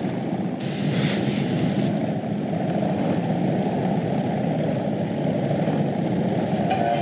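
A steady, heavy low rumble, a sound effect of Souther's procession advancing, with no clear rhythm or tone.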